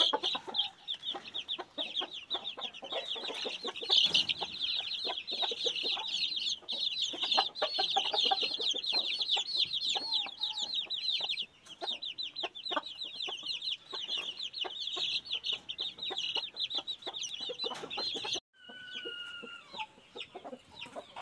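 A brood of Aseel chicks peeping constantly, many high peeps a second, with the mother hen's low clucks beneath. Near the end the sound cuts off suddenly, and a few longer, softer peeps follow.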